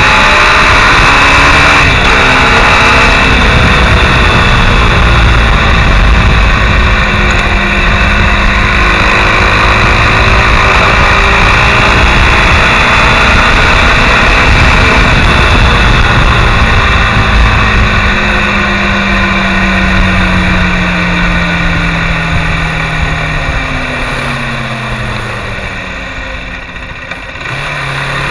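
Mondial SMX Enduro motorcycle engine heard from the handlebars while riding at speed, with wind rush on the microphone. About two-thirds of the way in, the engine pitch falls and the sound grows quieter as the bike slows, then it picks up again right at the end as the throttle opens.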